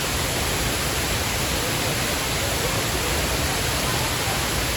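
Waterfall: falling water making a loud, steady, even rush with no breaks.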